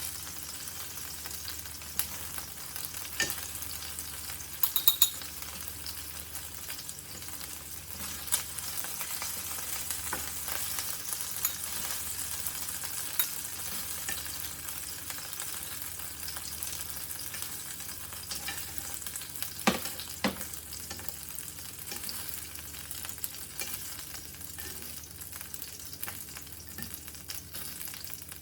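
Chicken pieces frying in hot olive oil in a pan, a steady sizzle, with a few sharp clicks of a utensil against the pan as the browned pieces are lifted out.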